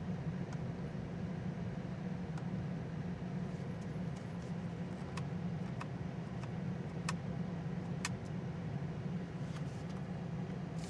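Steady low hum inside the cabin of an Alpine A390 electric car, with a handful of sharp, irregular clicks, as of switches or controls being operated.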